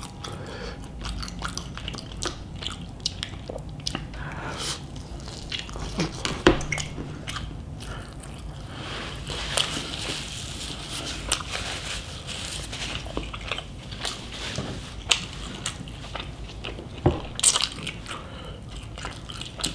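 Close-up eating sounds: mouth-smacking, chewing and swallowing of a chicken, rice and cheese burrito, with irregular wet clicks and a few louder smacks.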